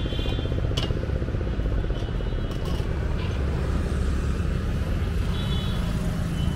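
Road traffic noise at a busy junction: a steady low rumble of passing vehicles, with a faint high tone about half a second in and again near the end.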